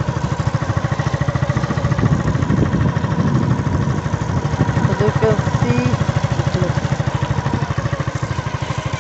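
A small engine running steadily with an even, rapid low pulse, about eight beats a second.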